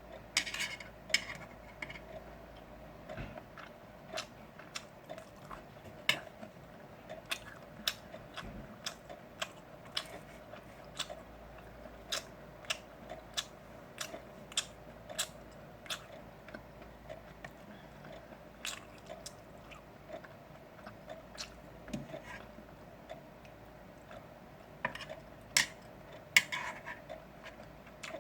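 Close-miked chewing and biting of grilled pork belly: wet mouth clicks about once or twice a second, with a few louder clicks near the start and again near the end, over a faint steady hum.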